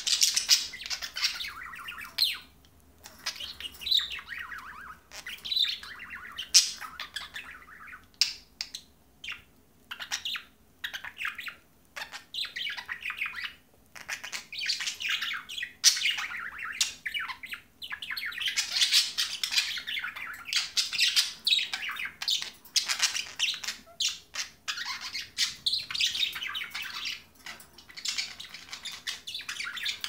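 Budgerigars chattering: a busy, almost continuous warble of chirps, squawks and sharp clicks, broken by a few short pauses.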